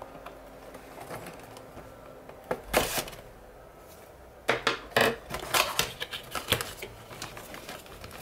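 Scissors cutting the seal along the edge of a small cardboard box: light clicks and scrapes, a short loud scrape about three seconds in, then a run of sharp snips and clicks as the cardboard is cut and handled.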